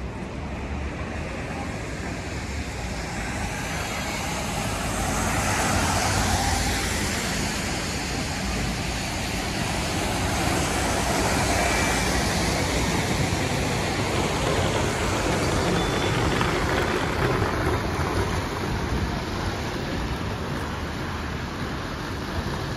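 Road traffic on a wet street: passing vehicles with a tyre hiss, including a double-decker bus going by close. The traffic swells loudest in the middle and eases toward the end.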